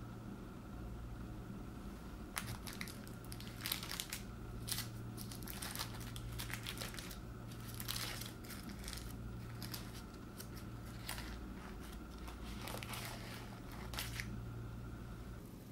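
Pleated paper baking-cup liner crinkling and tearing as it is peeled off a baked castella cake, in irregular crackly rustles from about two seconds in until near the end, over a faint steady low hum.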